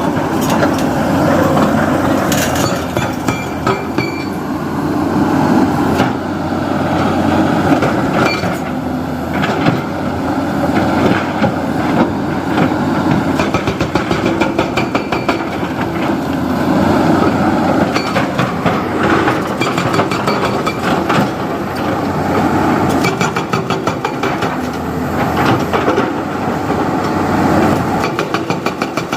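JCB 3DX backhoe loader's diesel engine running steadily under load while it digs and loads mud, with frequent clanks and knocks from the bucket and arms.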